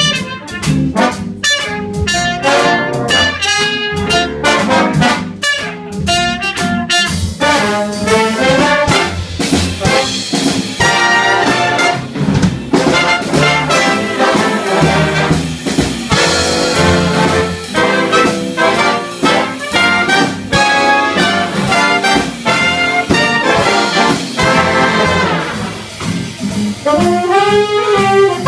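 Big band playing swing jazz live, with trumpets, trombones and saxophones. For the first several seconds the ensemble plays short, sharply separated chords, then it moves into fuller, more continuous playing.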